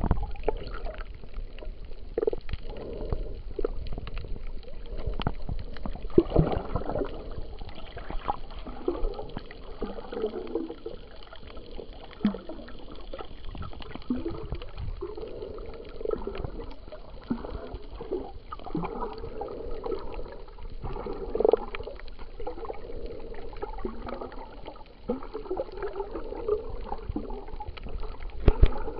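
Muffled underwater sound heard through a submerged camera: irregular gurgling and sloshing swells of water with many scattered sharp clicks and a few louder knocks.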